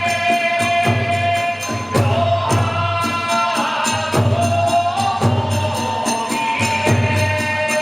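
Kagura hayashi music: a big drum beating a steady rhythm with rapid clashing of small hand cymbals, under a held, gliding melody line from a bamboo flute.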